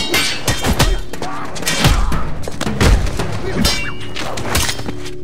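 Rapid string of dubbed fight sound effects: sharp hits and whooshes with several heavy thumps, over music and voices.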